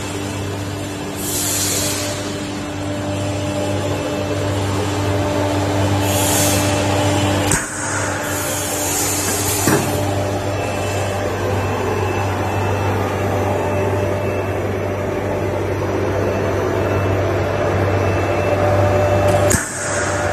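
LPG-5 centrifugal spray dryer running: a steady drone from its fan and atomizer with a constant low hum and a few held tones, and a couple of short bursts of hiss.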